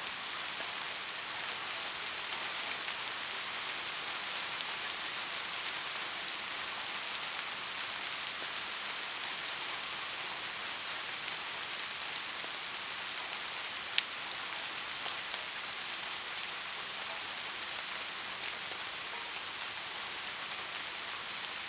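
Steady rain falling, an even hiss with scattered drops ticking on a surface, one sharper, louder drip about two-thirds of the way through.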